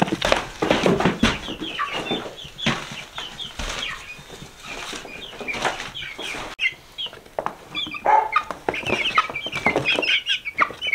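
A flock of young chickens crowded in a plastic tote, cheeping and clucking with wings flapping, over scuffs and knocks of the tote being carried.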